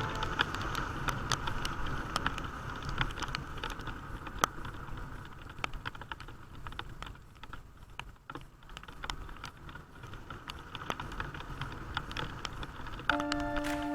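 Rain pattering, with many irregular sharp ticks of drops, over a low steady rumble.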